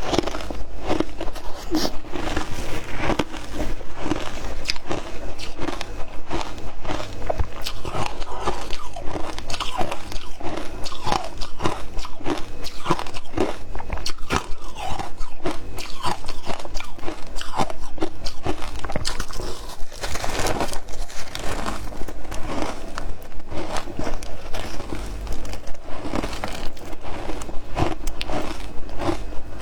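Close-miked crunching and chewing of frozen matcha ice: rapid, continuous cracking crunches as the ice is bitten and chewed, with no pauses.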